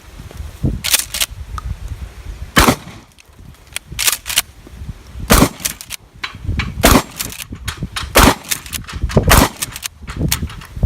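Gunshots: about ten single shots fired at an irregular pace, some in quick pairs, at an alarm clock used as a target.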